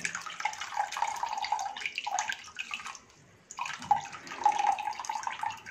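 Coconut milk trickling and splashing into a glass bowl as ground fresh coconut is wrung out hard in a cotton cloth. It comes in two stretches, with a brief pause about three seconds in.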